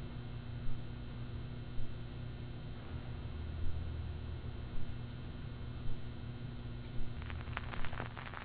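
Turntable running with a steady mains hum and low rumble, with soft knocks about once a second, as the automatic tonearm lowers. Near the end the stylus touches down on the vinyl record and surface crackle begins.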